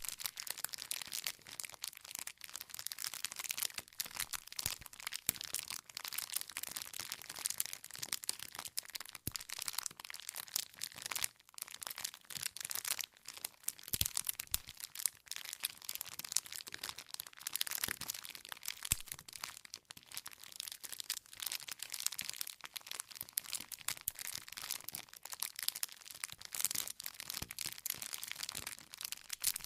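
Campfire burning: wood crackling continuously with dense small snaps, and a few louder pops from the logs.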